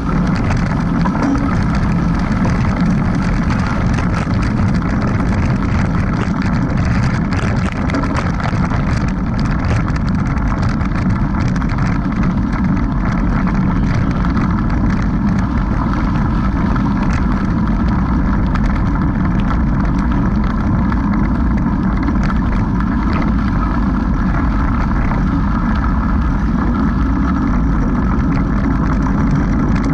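Wind buffeting the microphone of a riding mountain biker's action camera, with the bike's tyres rumbling over a dirt road and scattered small clicks and rattles.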